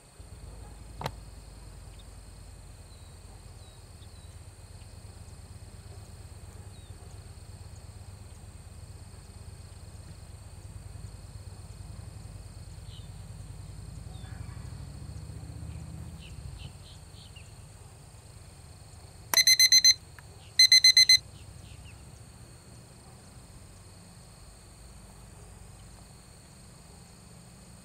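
Two short electronic timer beeps about a second and a half apart, each a clear pitched tone with overtones, over a steady background of insects buzzing and a low rumble. The beeps land on the on-screen running clock's 4:00 mark, plausibly the interval signal at which each behavior observation is scored.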